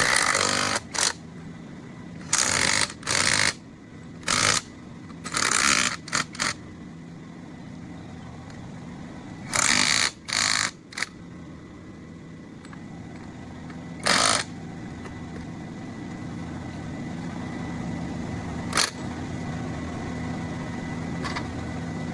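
Toyota car engine idling steadily after a long disuse, its level creeping up slowly over the second half. About a dozen short, loud bursts of hissing noise come over it at uneven intervals, most of them in the first half.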